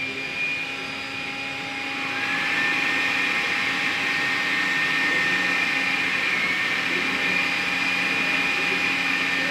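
Steady hissing drone with several held tones, one gliding up and settling about two seconds in: a sustained suspense background score laid under a TV serial scene.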